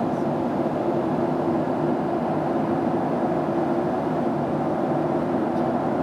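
Steady cabin noise inside a Boeing 737-700 in flight: a constant rush of airflow and the drone of its CFM56-7B engines, with a faint steady hum.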